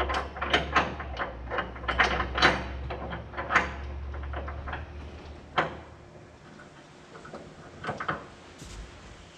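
Rapid metal clanks and clicks of a combine latching onto a six-row corn head, over a low engine rumble that stops about halfway through; a few separate knocks follow.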